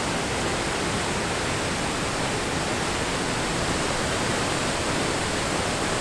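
The 35-metre Aling Aling waterfall in full flow: a steady, even rush of falling water.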